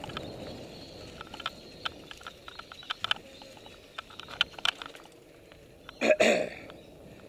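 Mountain bike riding over a gravel trail: irregular sharp clicks and rattles from the bike over a low rumble, then a short loud burst about six seconds in.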